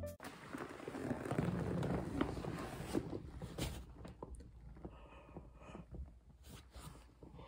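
Faint rustling and shifting as a person settles in an upholstered massage chair, with a few soft knocks, quieter in the second half.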